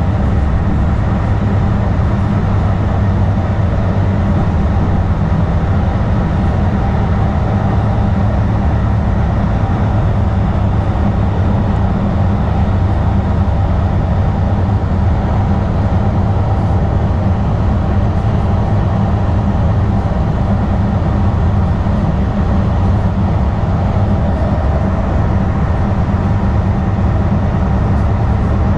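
2010 Kinki Sharyo light rail car running along the track, heard from on board: a steady low rumble of wheels and running gear.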